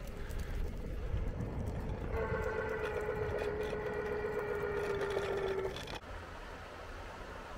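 Electric scooter rolling downhill over a low rumble of wind and road noise. From about two seconds in, a steady whine sounds for some three seconds, sinking slightly in pitch, then stops.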